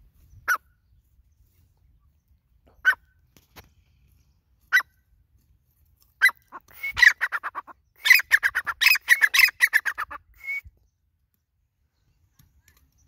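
Grey francolin calling: three single sharp notes about two seconds apart, then a fast run of loud repeated notes lasting about four seconds that stops abruptly, followed by one last short note.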